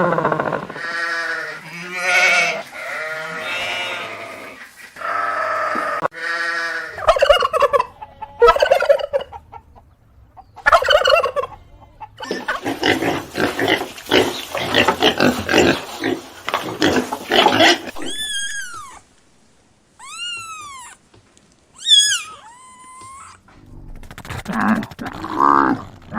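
Farm animal calls one after another, with poultry among them. Pitched calls come first, then a long run of rapid, rattling calls, and later a few high chirps that rise and fall in pitch.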